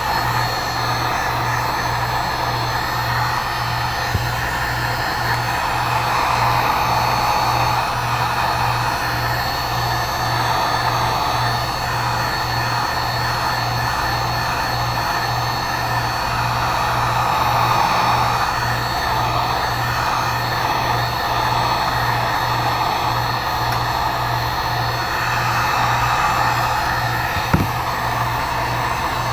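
Heat gun running steadily: its fan motor hums and air rushes out without a break. It is heating the tablet's screen glass so that the glass can be pried off.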